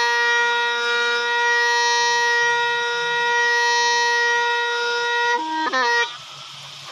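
Hmong raj bamboo pipe holds one long, steady note. About five and a half seconds in it plays a quick run of ornamented notes, then stops.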